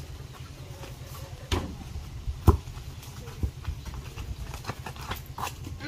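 Basketball thumping a few times as it is bounced and thrown during a pickup game, the loudest thud about two and a half seconds in, over a steady low rumble.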